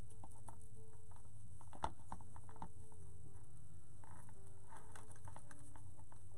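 Light clicks and rustles of hands knotting cotton fabric strips onto a wire wreath frame, with one sharper click just under two seconds in.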